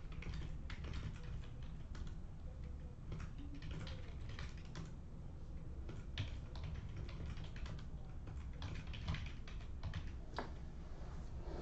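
Typing on a computer keyboard: irregular runs of quick key clicks, entering team names.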